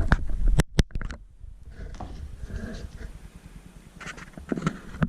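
Hands handling and opening the packaging of a GoPro Hero 7 Black: several sharp clicks and knocks in the first second, then rubbing and rustling, with more knocks near the end.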